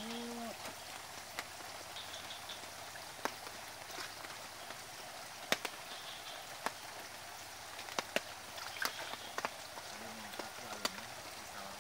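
Steady outdoor hiss with scattered, irregular sharp clicks, and faint voices just after the start and again near the end.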